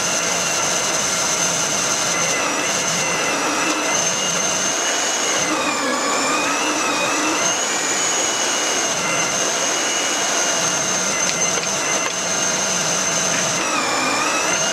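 Electric motor of a kitchen food processor driving its meat-grinder attachment as fresh herbs are pushed through, running steadily with a high whine. The pitch sags about six seconds in and again near the end as the motor slows under load.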